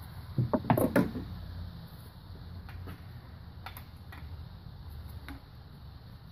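Metallic clinks of a socket wrench being fitted onto an engine head bolt, a quick loud cluster about half a second in, followed by a few fainter scattered clicks as the long wrench is worked on the bolt.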